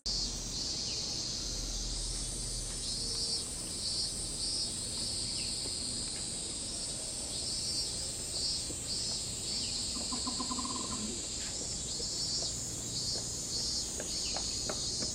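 Cicadas singing: a steady high buzz throughout, with a second chorus pulsing in short repeated phrases just below it.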